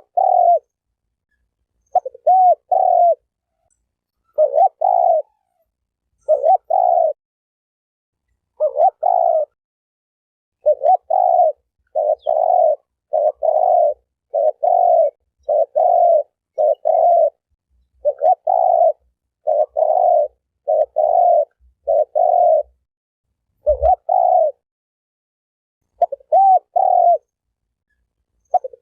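Spotted dove (terkukur) cooing over and over in short groups of two or three notes, about every second or two, on a clean silent background. A brief low thump comes about 24 seconds in.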